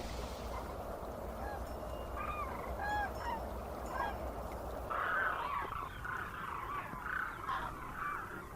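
Animal calls: a few short, separate calls, then a dense chorus of overlapping calls from about five seconds in.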